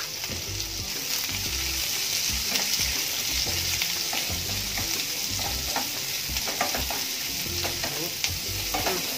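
Sliced onions and green chillies sizzling in hot oil in a nonstick kadai, stirred with a wooden spatula that scrapes and knocks softly against the pan. The onions are being sautéed until soft.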